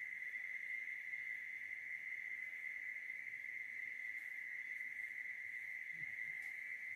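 Insects trilling in one steady, unbroken high-pitched drone.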